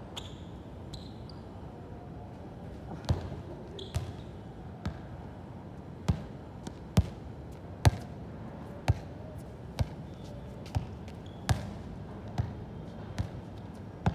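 A series of sharp thuds, about one a second, starting about three seconds in and keeping an even rhythm.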